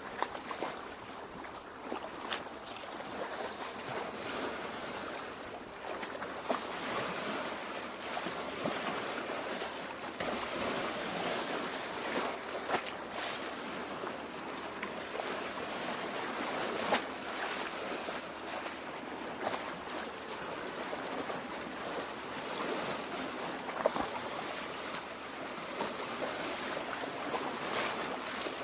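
Lake water lapping and gurgling at the shore: a steady wash of water with many small splashes and drips.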